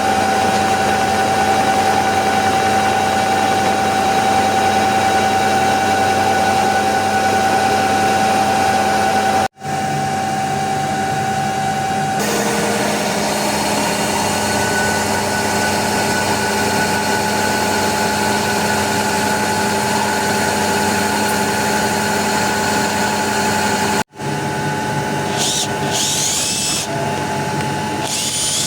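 A CNC milling machine running: a steady high spindle whine over cutting noise, broken twice by abrupt cuts between clips. Near the end come several rising high-pitched whines.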